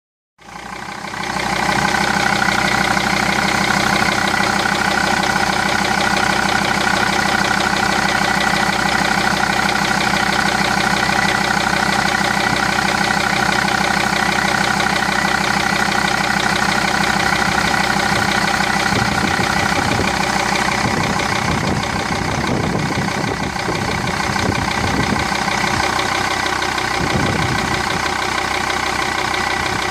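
Jeep Grand Cherokee 2.7 CRD five-cylinder common-rail diesel idling, with a steady whine over the engine note. The whine is the viscous heater problem the owner is showing. The low rumble becomes uneven in the last third.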